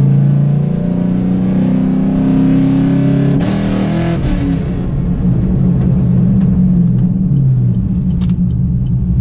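Cammed V8 of a Chevrolet Camaro SS heard from inside the cabin under acceleration: the revs climb for about three and a half seconds, then drop with a brief rushing noise at an upshift, and the engine runs on steadily at lower revs.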